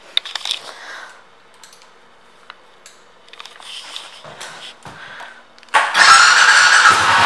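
Faint clicks and handling noises, then about six seconds in a 2014 Suzuki Boulevard S40's 652 cc single-cylinder engine is started: a brief burst of starter cranking, then the engine catches and runs with an even, pulsing beat.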